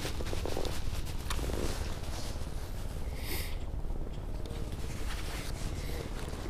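Steady low wind rumble on the microphone, with clothing rustling and a few light knocks from handling.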